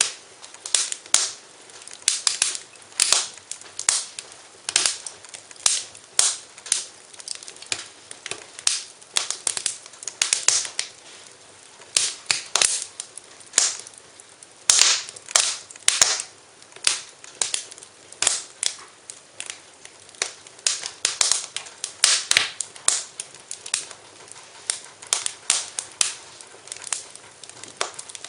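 Wood fire in a fireplace crackling, with irregular sharp pops several times a second over a faint hiss.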